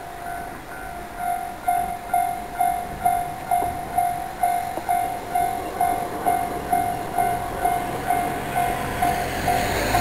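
Japanese railway level-crossing warning bell ringing in an even, repeating beat of a little over two strokes a second. The low rumble of a passing train builds near the end.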